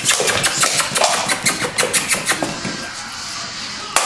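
A black puppy playing with an empty drink can on a tile floor: a rapid run of clicks and scrapes of the can and claws on the tiles, thinning out after about two and a half seconds, with one sharp knock near the end.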